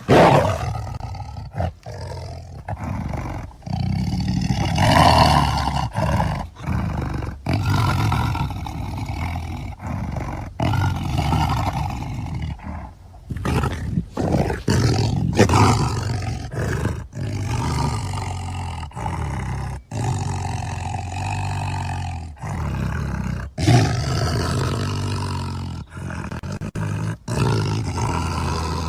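Tiger roaring and growling in a long series of deep calls with brief breaks between them, starting abruptly out of silence.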